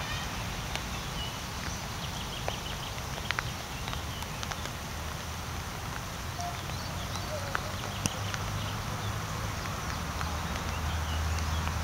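Rain falling on the leaves of a blossoming pear tree: a steady hiss with many sharp drips tapping close by. A low hum grows louder in the last couple of seconds.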